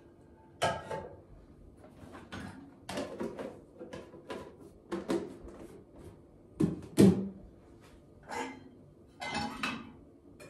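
Dishes clattering as a dishwasher is unloaded: plates, a pan and bowls knocking against the racks and being set down on the counter in a string of separate clinks and knocks, the loudest about seven seconds in.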